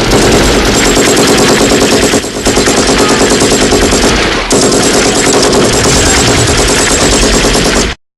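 Machine gun firing long bursts of rapid automatic fire, with a brief lull about two seconds in and a short break about four and a half seconds in, then cutting off suddenly near the end.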